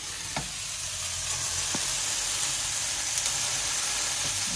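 Burger patties sizzling in a frying pan, the sizzle slowly growing louder as a patty is pressed flat with a potato masher.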